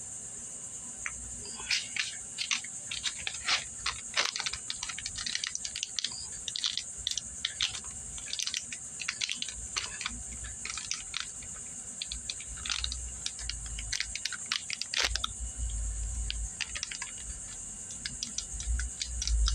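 Crinkling and rustling of a plastic bag as the new piston rings are unpacked by hand: a run of irregular clicks and crackles, with a few low bumps of handling near the end.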